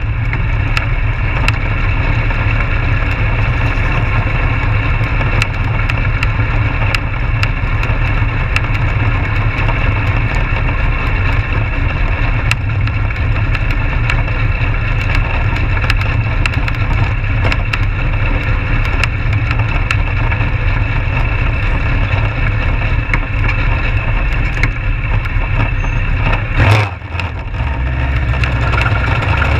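Yamaha motorcycle engine of a Legends race car running steadily at low speed, heard on board, with sharp crackling clicks over it. About 27 seconds in there is a brief louder noise, after which the engine note drops for a moment before picking up again.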